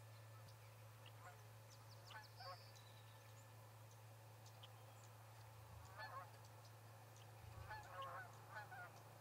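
Geese honking in the distance, short calls in several clusters that come closer together near the end, with faint high chirps of small birds over a low steady hum.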